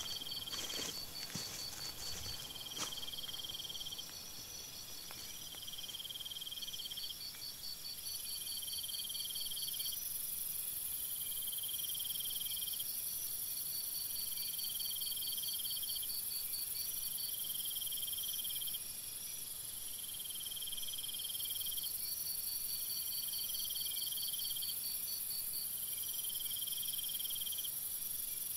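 Insects trilling in a chorus: one trill repeats in phrases about a second long with gaps between them, while another pulses faster and higher, over a steady high hiss. A few faint clicks come in the first three seconds.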